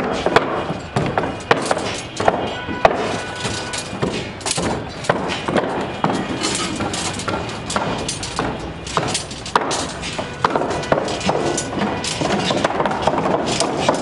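Busy construction-site work on timber formwork and steel reinforcement: a steady run of irregular hammer-like knocks and thuds on wooden planks mixed with the clank of steel bars being handled.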